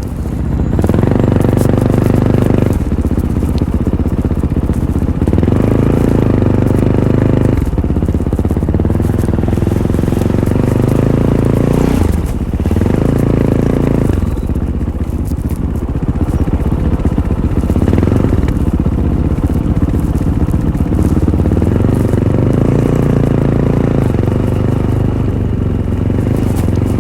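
Fantic Caballero 500's single-cylinder four-stroke engine through its stock Arrow exhaust, revving up and backing off again and again as the throttle is worked on a dirt trail. Scattered clicks and knocks come through alongside it.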